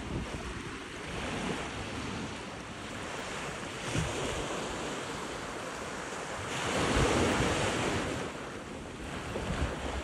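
Small Atlantic surf washing onto the shore in a steady rush, with one wave swelling and breaking louder about seven seconds in. Wind buffets the microphone with low rumbles.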